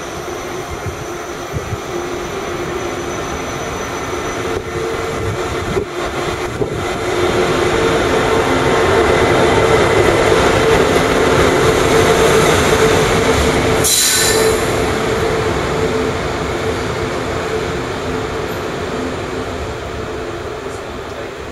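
ICE high-speed electric train departing through the station, its running gear giving a steady rumble under a hum. The sound grows louder through the middle and eases off toward the end. A brief high hiss comes about two-thirds of the way through.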